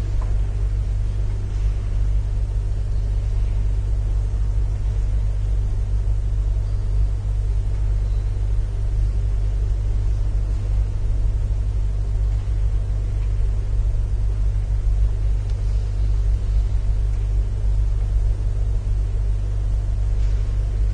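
Steady low rumble and hum, even in level throughout, with nothing else over it.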